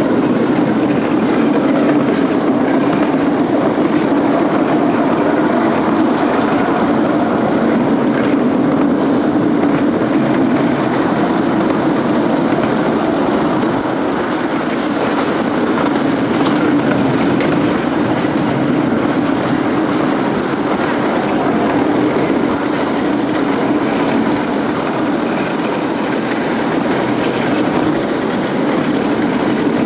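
10.25-inch gauge miniature railway train on the move, heard from an open passenger carriage: a steady rumble of carriage wheels running on the rails.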